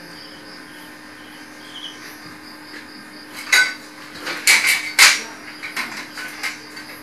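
Steel chair-frame parts clanking and knocking as they are worked. There are a few loud, sharp metal clanks about halfway through, then lighter knocks, over a faint steady hum.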